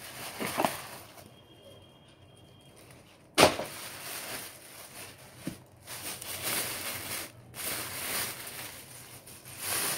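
Clear plastic bags rustling and crinkling as they are handled and pulled open around a pair of slippers. Intermittent at first, then in longer stretches after a sudden loud rustle about three and a half seconds in.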